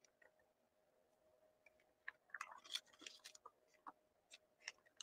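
Faint crackle and rustle of a plastic comic-book bag being handled, a cluster of small clicks between about two and five seconds in.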